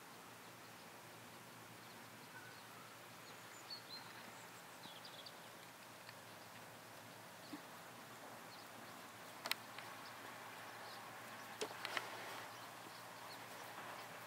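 Faint open-field ambience with a few short, high bird chirps. A handful of sharp clicks or knocks come in the second half.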